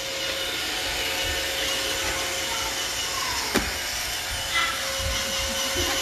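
Roomba robot vacuum running with a steady whir and a constant hum, with a short knock a little past halfway.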